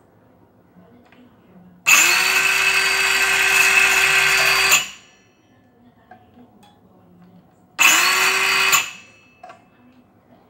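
Total 20 V cordless circular saw run with no load, twice: the motor and blade spin up with a short rising whine and run for about three seconds, then after a pause for about one second, winding down each time the trigger is let go.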